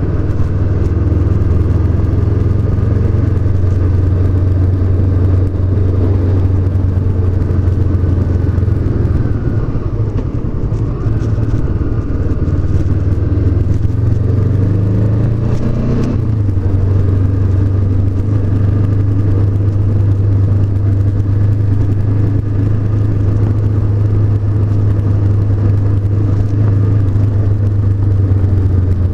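Honda CB500X's parallel-twin engine running steadily under way. About sixteen seconds in, the revs climb briefly and then drop sharply.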